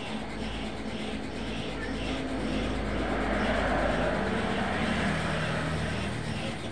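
Road traffic: a van drives past, its engine and tyre noise swelling to a peak about halfway through and then fading, over a steady low rumble.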